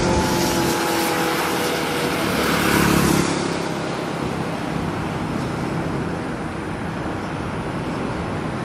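A large four-engine jet airliner's engines during its landing. The broad roar grows loudest about three seconds in, then settles to a steady rumble as the jet rolls out.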